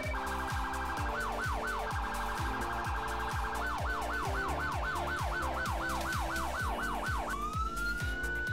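Police car siren changing modes: a fast warble, then a yelp of quick rising-and-falling sweeps about three to four a second, switching to a slow rising wail near the end. Background music with a steady beat runs underneath.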